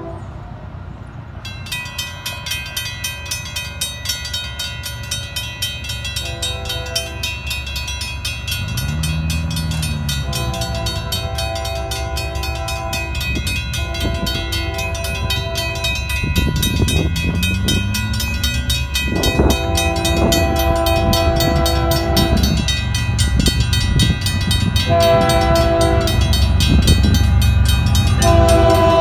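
A railroad crossing warning bell starts ringing about a second and a half in and keeps up a rapid, even ring. Over it, an approaching Union Pacific freight train's diesel locomotive sounds its air horn in several short and long blasts, and the low rumble of the train grows steadily louder as it nears the crossing.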